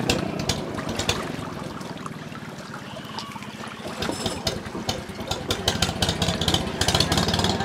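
Small racing boat's engine running at speed and fading away as it passes, followed by a stretch of sharp clicks and crackles over low engine noise.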